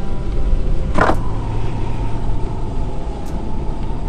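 Motorcycle engine running at road speed, with steady wind rumble on the helmet-mounted camera's microphone. A brief, loud sharper sound comes about a second in.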